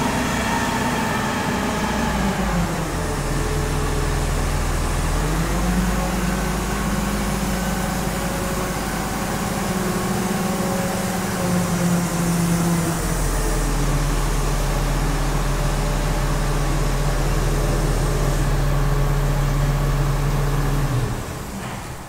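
Diesel engine of a truck-mounted crane running steadily, its speed stepping down and up a few times as the crane works. The engine sound drops away near the end.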